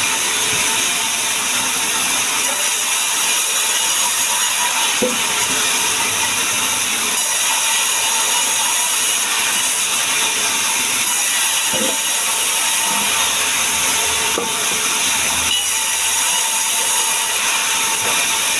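Woodworking power tool running steadily on sengon wood: a loud, continuous hiss with no breaks.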